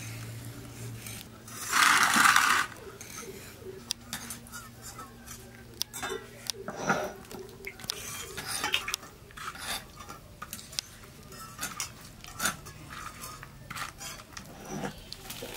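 Hand rubbing salt and spice paste into scored koi fish on a clay plate, with scattered small clicks and taps of kitchenware. A brief loud hiss comes about two seconds in.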